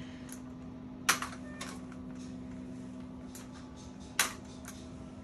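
A metal walking frame being lifted and set down on a hard floor: a sharp knock about a second in and another about four seconds in, with lighter clicks and taps between, over a steady low hum.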